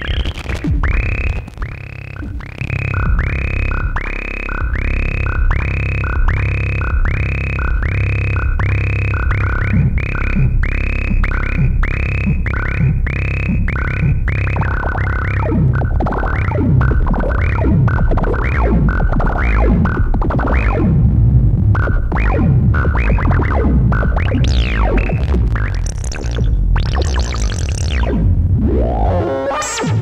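Modular synthesizer patch of crucFX Kosmo-format modules: a Ciat-Lombarde Rollz-style transistor rhythm generator run through a dual resonant filter, playing a repeating pattern of pitched blips about twice a second over a steady low drone. About halfway in the rhythm turns faster and more irregular, and near the end high resonant sweeps rise.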